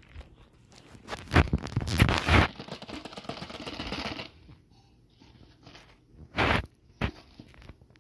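Rubber-gloved hands handling and sliding a cardboard Kinder Joy three-pack box: a few loud scraping rustles about a second in, a longer steady scrape, then two short sharp scrapes near the end.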